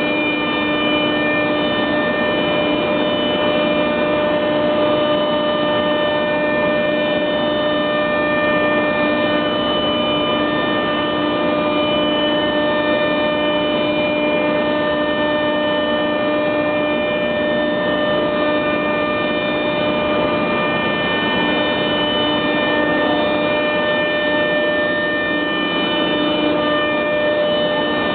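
Heian SR431-P CNC router and its vacuum system running steadily: a continuous machine whine of several steady tones over a rushing noise, holding the same level throughout.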